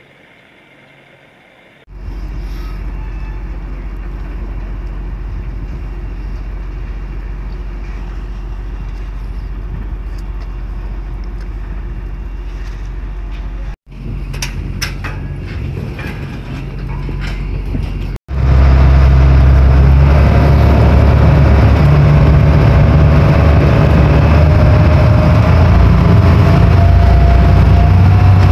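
Small passenger ferry's engine running loud and steady underway, heard on board, with a tone that slowly rises. Before the boat gets under way, a steady low rumble at the quay gives way to footsteps clicking on the boarding gangway.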